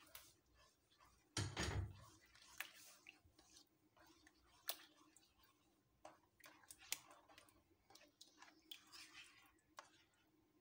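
Faint, soft squelching and scraping of a spatula stirring thick cornflour pudding mixed with cream and chopped banana in a pan, with scattered light clicks and a dull thump about one and a half seconds in.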